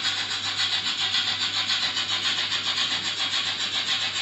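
Märklin model steam locomotive and freight wagons running along the track: a steady whirring rattle with a fast, even pulse of about five or six beats a second.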